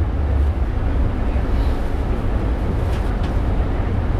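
Funicular railway car running, a steady low rumble with a couple of faint clicks about three seconds in.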